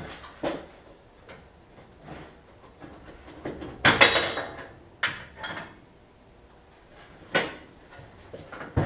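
Metal parts and tools clanking and knocking while car body parts are worked loose, with one loud ringing metal clang about four seconds in.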